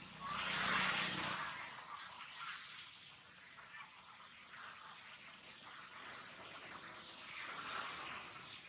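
Steady high-pitched insect drone, with a louder, short noisy swell about half a second in and a smaller one near the end.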